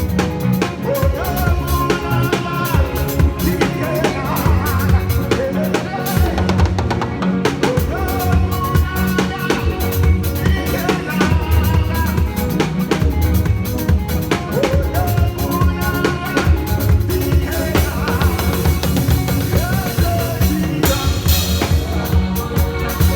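Live church praise music driven by a drum kit: bass drum, snare and rimshot hits played densely over other backing instruments.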